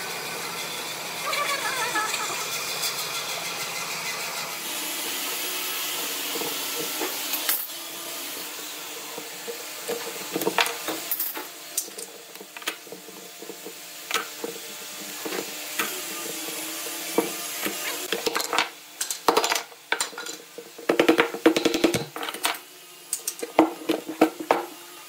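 Woodshop handling noise: a steady hiss, then from about eight seconds in a growing run of sharp metal clicks and knocks. They come thickest near the end, as steel bar clamps are loosened and lifted off a glued-up block of wood and the block is handled on the table.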